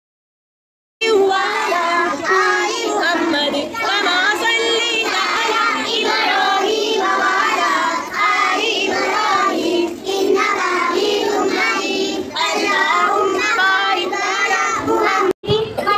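A group of young children singing together. It starts after about a second of silence and cuts out for an instant near the end.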